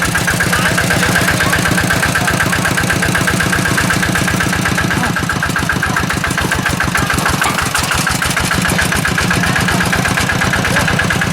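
Engine running steadily, with a rapid, even beat of firing strokes and no revving.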